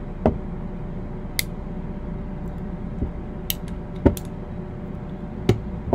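Scattered light clicks and knocks from handling a dismantled Uberti 1875 Outlaw single-action revolver: metal parts tapping together and set down on a towel-covered table, about six in all, the sharpest about four seconds in. A steady low hum runs underneath.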